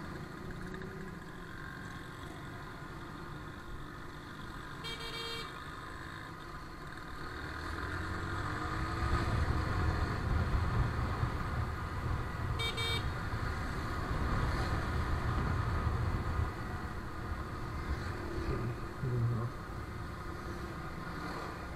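Motorcycle riding through town traffic: steady engine and road rumble that grows louder from about eight seconds in, with two short horn beeps, about five and thirteen seconds in.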